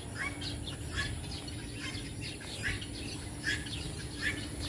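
Birds chirping outdoors: short, high, falling chirps repeated about once a second, over a faint steady low hum.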